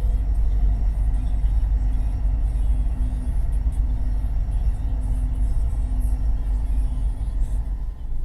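Steady low rumble of a car driving, heard from inside the cabin, with faint music over it.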